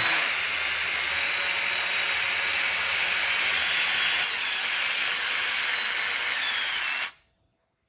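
Cordless drill running steadily as it drives a 12×1.5 mm tap all the way down a head bolt hole in a Cadillac Northstar's aluminium block, cutting new threads. The drill stops suddenly about seven seconds in.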